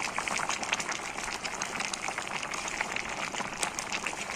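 Shrimp stew in coconut milk simmering in a pot, a steady crackle of many small bubbles popping.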